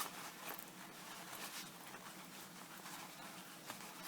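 Faint small clicks and rustling from a size-7 zipper slider being worked by hand onto one side of a trouser zipper's teeth.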